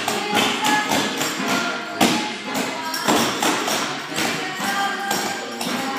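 Clogging taps from two dancers striking a dance floor in quick, sharp clusters, over an upbeat recorded song.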